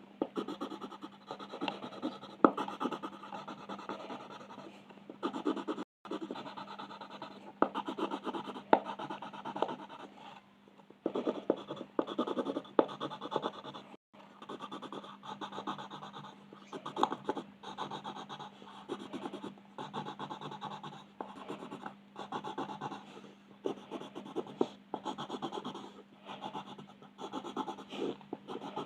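Colouring strokes on paper: a pen or pencil tip scratching back and forth in quick, irregular bursts, over a faint steady hum. The sound cuts out completely for an instant twice.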